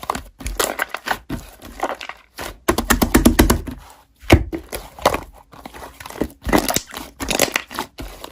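Slime being squeezed and pressed by hand, giving a run of irregular wet clicks, pops and crackles.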